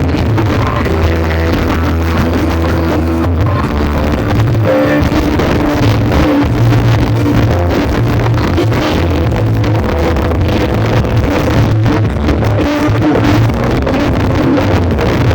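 Music with a heavy bass line played loud through a large sound system.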